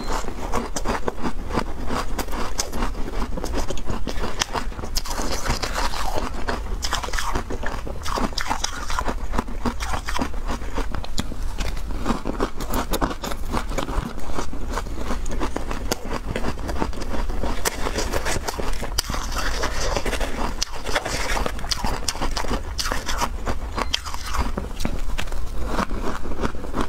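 Close-miked crunching and chewing of mouthfuls of crumbly frozen ice, tartary-buckwheat 'snowflake rice' ice, going on steadily with many small crisp cracks. A metal spoon scrapes into the ice in the tray now and then.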